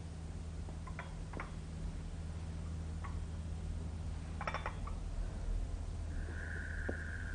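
Steady low hum under a quiet scene, with a few faint clicks and a light clink about four and a half seconds in. A thin steady high tone sets in about six seconds in.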